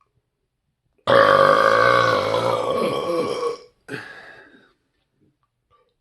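A man's loud, long burp starting about a second in and lasting about two and a half seconds, followed by a short, weaker burp.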